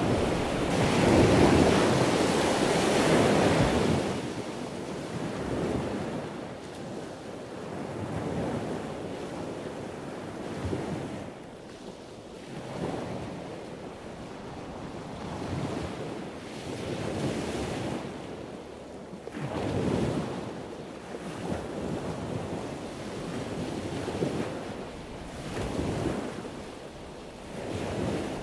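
Sea waves washing in, swelling and falling back every two to three seconds, loudest in the first few seconds.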